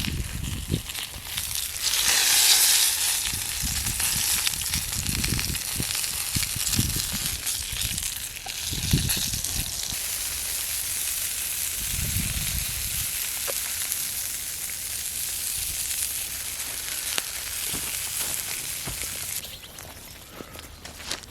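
Food frying in a pan over a campfire: a steady sizzling hiss that swells about two seconds in and dies down shortly before the end, with a few low knocks underneath.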